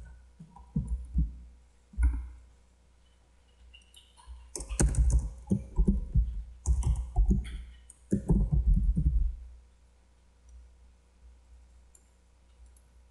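Typing on a computer keyboard in uneven bursts of keystrokes, which stop about nine seconds in. A few faint clicks follow.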